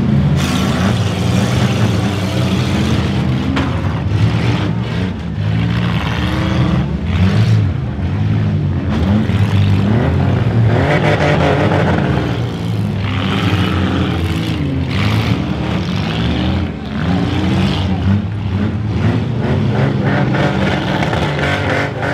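Demolition derby cars' engines running hard and revving, with repeated short knocks of cars colliding.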